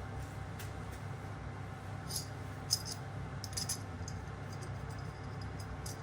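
A few light metallic clicks and clinks of small hard parts or tools being handled, over a steady low hum.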